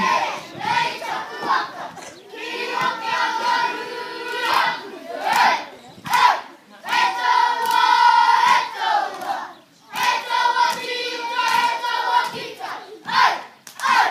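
Group of young boys chanting a haka in unison, in loud shouted phrases with held notes, broken by short pauses between lines.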